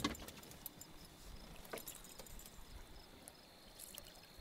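Quiet outdoor background with faint, steady insect-like chirping high up and a soft click a little under two seconds in.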